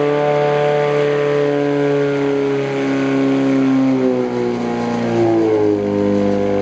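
Portable fire pump engine running hard at high revs, feeding the attack hoses, with the pitch dipping and wavering about four seconds in.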